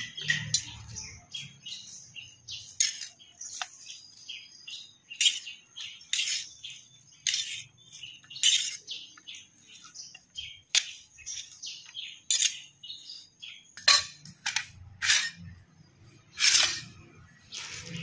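A spoon stirring and scraping a chopped cabbage, tomato and cheese masala mix in a bowl, giving short irregular high-pitched scrapes and clicks, about one or two a second.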